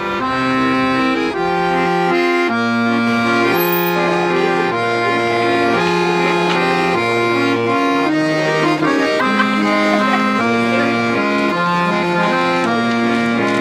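Accordion music: a melody of held notes over a bass line that changes note about once a second.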